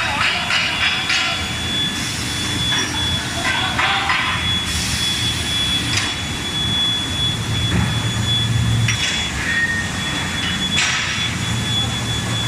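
Steel bar induction heating line running: a steady high whine from the induction heater over a constant low hum, with irregular bursts of hissing and rattling from the machinery.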